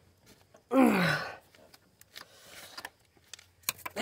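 A man's straining groan, falling in pitch, about a second in, followed by a few faint clicks. The groan comes from the effort of working a stubborn hose clamp off with pliers.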